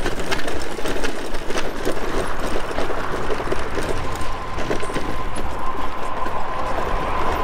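Electric bicycle rattling and jolting rapidly over a bumpy, rough road surface, a dense clatter of small knocks. A faint steady whine comes in about halfway through.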